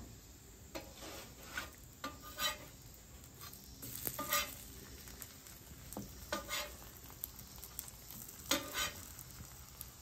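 Hash brown patties sizzling faintly on a hot flat-top griddle, with a metal spatula scraping across the griddle top in short strokes every second or two as the patties are pressed and moved.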